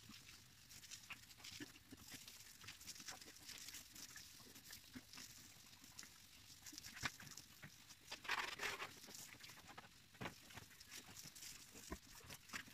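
Faint pattering and splashing of hose water on pigs and their pen, with scattered light knocks. A louder, short noisy burst comes about eight seconds in.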